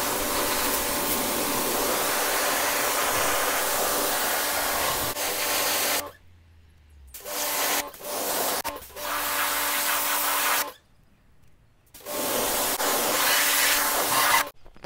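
Pressure washer spraying a hard water jet onto a stainless steel exhaust pipe, rinsing off the stainless steel cleaner: a loud hiss of spray over a steady pump hum. The spray stops and restarts a few times, with pauses about six and eleven seconds in, and cuts off just before the end.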